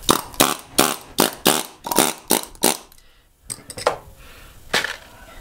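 Pneumatic air chisel fired in short bursts, about three a second, shearing the outer layer of copper windings off an AC fan motor's steel stator. The bursts stop a little under three seconds in, and a few scattered knocks follow.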